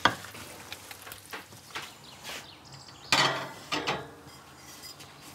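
Cooking sounds from a pot and a gas griddle: a sharp utensil knock at the start, small clinks and knocks, and a louder burst of scraping noise about three seconds in.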